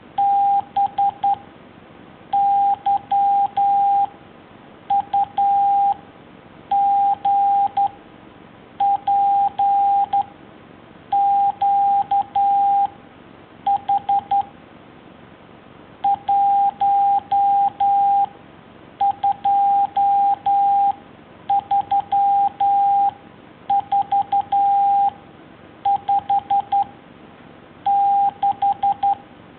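Morse code sent as a single steady beep tone, keyed into dots and dashes. Each short group is one letter or number, with a pause of about a second between characters, about thirteen characters in all.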